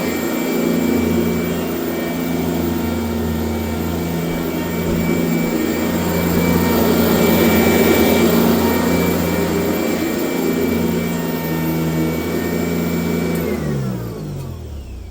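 1996 Sanitaire S663 upright vacuum cleaner running steadily, then switched off about 13 seconds in, its motor whine falling in pitch as it spins down.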